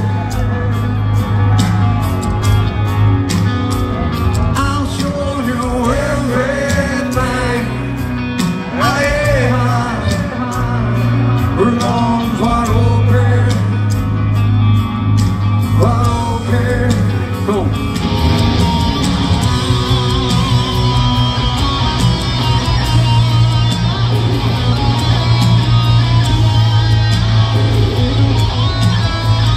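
Live rock band playing in an arena, heard from within the audience: a male singer over electric guitars, bass and drums. About eighteen seconds in the band gets louder and fuller, and the singing drops back.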